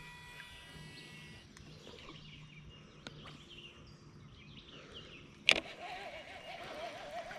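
Faint outdoor ambience: a steady low hum and faint bird calls, broken about five and a half seconds in by a single sharp click, after which a faint wavering tone sets in.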